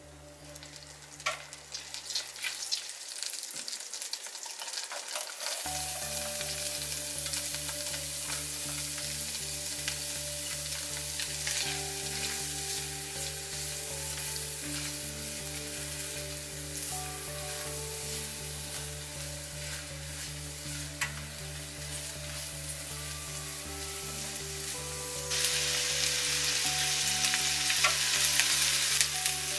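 Chopped onion frying in melted butter in a nonstick pan: a steady sizzle with the spatula scraping and clicking as it is stirred. The sizzle starts up about five or six seconds in and gets louder near the end.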